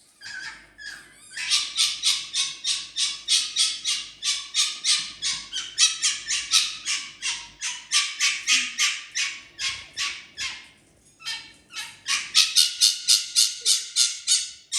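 Fennec fox giving a fast run of sharp, high-pitched squeaking calls, about five a second, with a short break a little past the middle. It is a defensive squeal meant to keep a person away from its mate.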